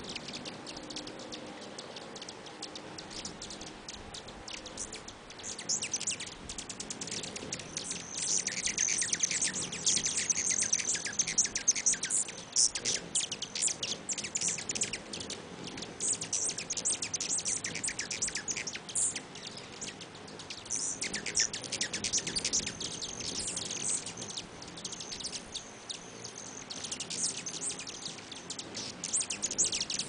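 A swarm of hummingbirds, rufous hummingbirds among them, chattering around a feeder: rapid high chips and squeaky chatter from many birds at once, growing denser and louder in bursts from about a quarter of the way in, with a thin high steady whine at times.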